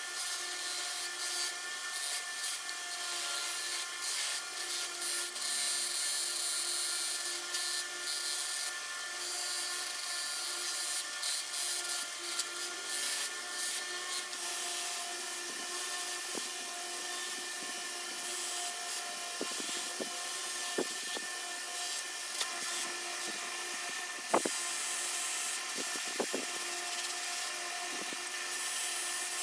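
A power tool running steadily, its motor hum under a constant rubbing, grinding hiss as it works the part. About halfway through, a few sharp knocks and clacks break in over the running tool.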